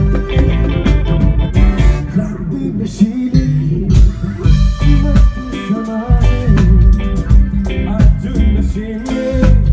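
Live band music: electric guitar played over bass and a drum kit.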